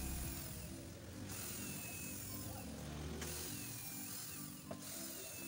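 Cordless drill-driver running, backing out the screws that hold a flat-screen TV's back cover.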